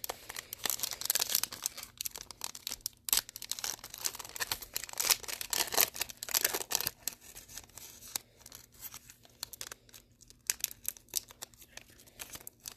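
Foil wrapper of a trading card pack crinkling and tearing as it is handled and worked open. The crackling is dense for the first half and comes in sparser, scattered bursts later.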